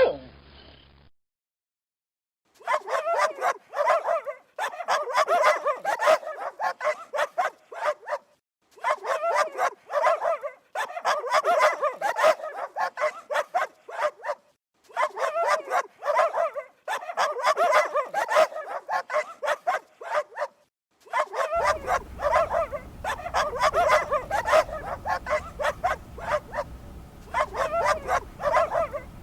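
Dog barking in rapid runs of quick, yappy barks, several runs in a row with short pauses between them.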